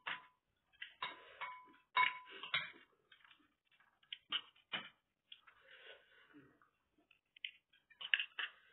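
Metal spoon clinking and scraping against a white ceramic bowl while eating: irregular taps and scrapes, a couple of them ringing briefly about one and two seconds in, with another cluster near the end.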